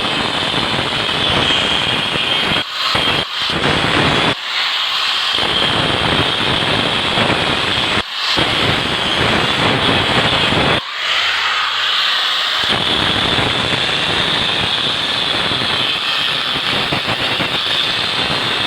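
Angle grinder cutting into the steel shell of a refrigerator compressor: a steady, loud grinding hiss with a high ring, briefly dipping or stopping a few times as the cut is paused.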